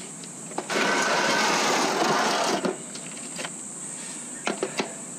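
A power driver runs for about two seconds, undoing a bolt on the motorcycle, followed by a few light metallic knocks as the tool and bolt are handled.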